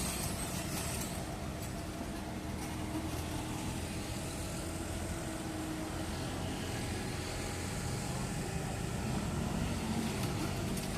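Komatsu excavator's diesel engine running steadily during unloading, with a few faint sharp clicks. The engine swells slightly near the end.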